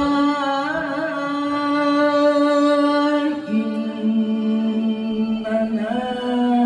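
A man's melodic Qur'an recitation (tilawah) into a handheld microphone, drawn out as one long held note. About three and a half seconds in it steps down to a lower note, which is held with small turns near the end.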